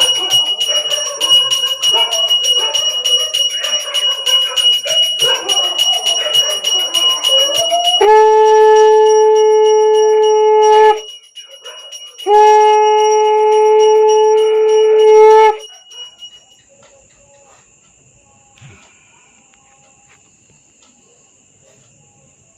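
A puja hand bell rung rapidly and without pause over voices. About eight seconds in, a conch shell is blown in two long steady blasts of about three seconds each, a second apart, while the bell keeps ringing. Then the bell stops and only faint crickets are left.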